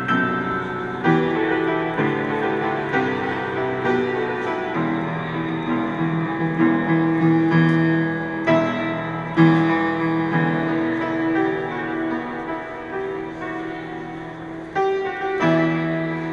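Piano music: sustained chords under a melody, with new notes struck every second or so.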